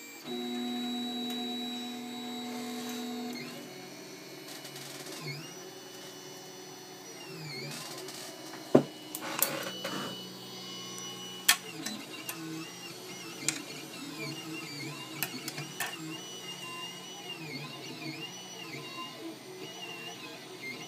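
Solidoodle 3D printer running, its stepper motors whining in pitches that rise, hold and fall with each move of the axes. A steady hum fills the first three seconds, and a few sharp clicks come in the middle.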